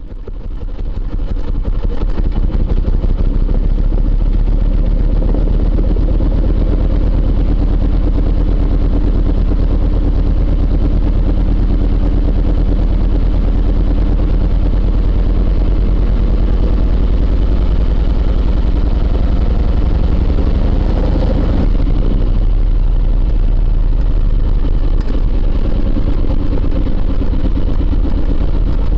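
Aprilia Caponord 1000 ETV motorcycle's V-twin engine running steadily, heard from on board as the bike rides along. It fades in over the first couple of seconds.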